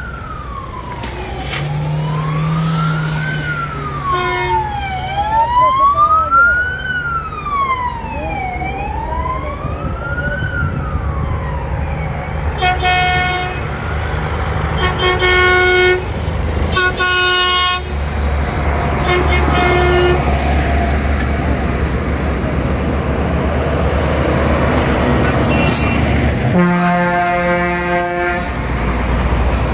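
Police car siren wailing, sweeping slowly up and down about three times, then stopping. Vehicle horns from the passing tractors and trucks follow: several short blasts, then a longer one near the end, over the steady rumble of tractor engines.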